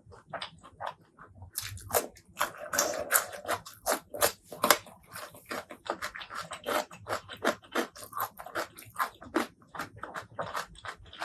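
Close-miked eating sounds: a person chewing and biting with rapid, irregular wet smacks and crisp clicks. The clicks start sparse and grow dense about two seconds in.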